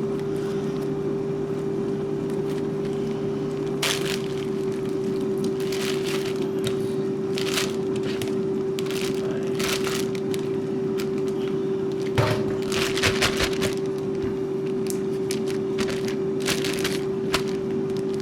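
Steady hum with a single held tone from a running kitchen appliance's fan, most likely the air fryer cooking chicken, with scattered clicks and knocks of kitchen things being handled, a short cluster of them a little after halfway.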